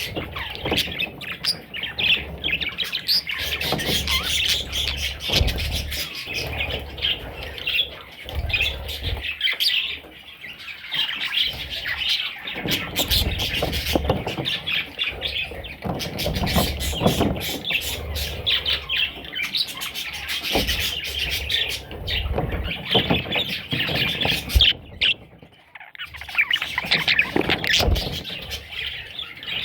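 Budgerigar chicks chirping and squawking in a dense, continuous chatter, mixed with many short clicks and scratches; the noise drops away briefly near the end, then resumes.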